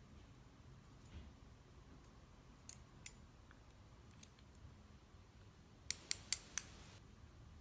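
Small metal clicks of tweezers against a Kwikset lock cylinder's pins and parts during rekeying: a few faint scattered ticks, then four sharp clicks in quick succession about six seconds in.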